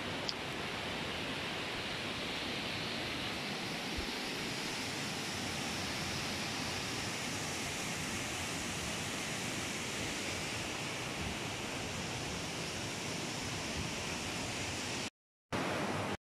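Steady rushing noise of running water, even throughout, cutting out to silence twice briefly near the end.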